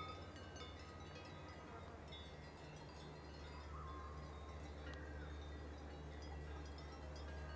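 Distant cowbells clanking and ringing irregularly, faint, over a steady low hum.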